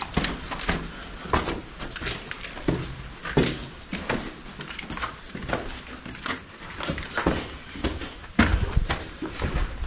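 Footsteps on gritty, debris-strewn stone steps: irregular scuffs and crunches, about one or two a second, with a heavier thud near the end.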